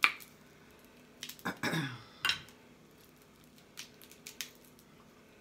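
Blue crab shells being cracked and picked apart: sharp cracks and clicks, the loudest right at the start and a cluster around two seconds in, with a few lighter clicks near the end.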